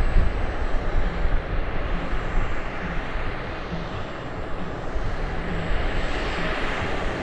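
Radio-controlled scale model helicopter running: a steady turbine and rotor noise with a low pulsing note, its high hiss growing louder near the end.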